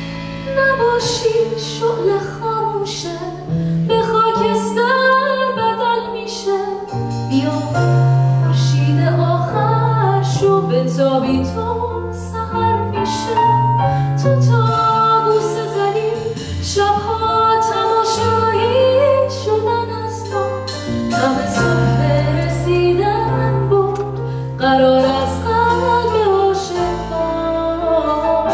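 A woman singing a melody with a live band behind her, over held bass notes and light percussion.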